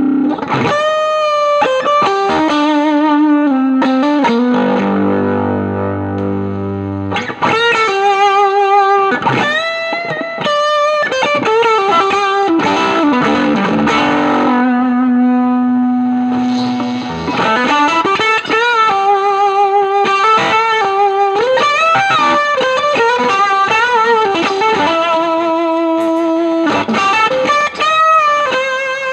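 Strat-style electric guitar played through the Spruce Effects Volcanoes silicon/germanium hybrid fuzz pedal into a Milkman The Amp 100. It plays a lead line of single notes with bends and vibrato, some held for a second or more, in a fuzz tone.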